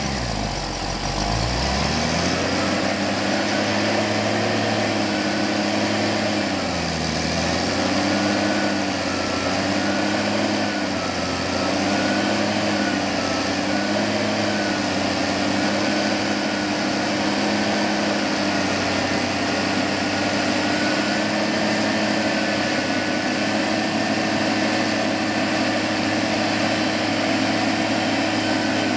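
Claas Xerion tractor's diesel engine running under load as it pulls a rear-mounted tillage implement through ploughed soil. The revs dip about a second in and again around seven seconds in, then hold steady.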